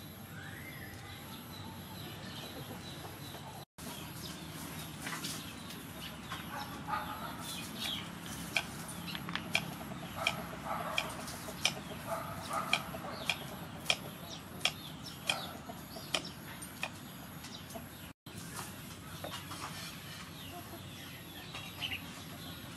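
Kitchen knife cutting pineapple on a wooden chopping board: a run of sharp knocks, about one or two a second, with chickens clucking in the background.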